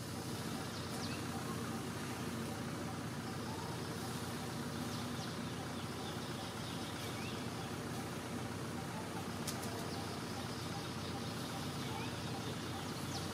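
Steady outdoor background noise with a low hum, a few faint short chirps and a couple of faint clicks.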